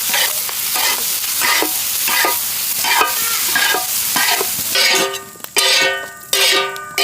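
Squid in masala being stir-fried in oil in a large pan: a steady sizzle with a spatula scraping through it about every half second. Near the end, several short ringing tones with a steady pitch cut in and stop abruptly.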